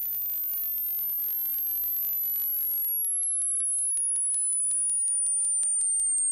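A breadboard-built New Unusual Oscillator circuit (a Mroztronium design) playing through a small synth amp and spring reverb: a piercing, very high tone that slowly falls in pitch, with a rapid train of clicks. For the first three seconds, while a fingertip touches the circuit, a hiss and a low hum sit underneath, and they cut off suddenly.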